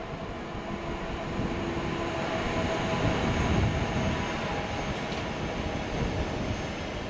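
Electric locomotive and double-deck Intercity coaches rolling past at low speed: a steady rumble of wheels on rail with faint whining tones. It grows louder toward the middle and eases off a little afterwards.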